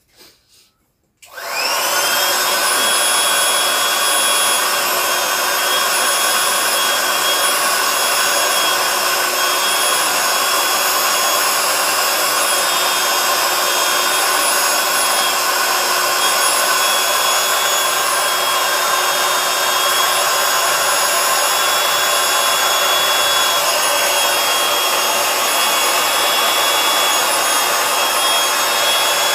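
Handheld electric air pump switched on about a second in, its motor spinning up and then running steadily with a whine as it blows air into a vinyl inflatable chair.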